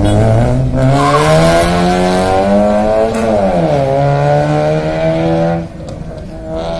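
Car engine revving hard at high rpm on a closed course: its pitch climbs for about three seconds, dips briefly, then is held high, with tyres squealing over it, before it drops away about five and a half seconds in.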